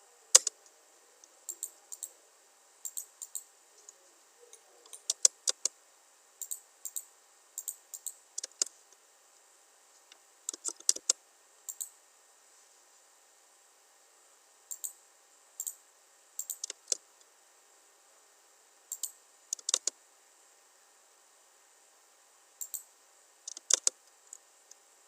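Scattered clicks of a computer mouse and keyboard, often in quick pairs, with pauses of a second or more between them.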